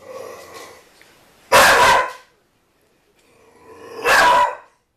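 Pit bull puppy barking at a ball it is scared of: a quieter bark at the start, then two loud barks, about a second and a half in and again about four seconds in.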